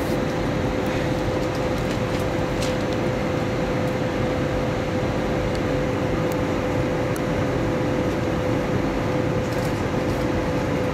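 Airbus A320 cabin noise during descent: a steady rush of airflow and engine sound with a constant hum running through it.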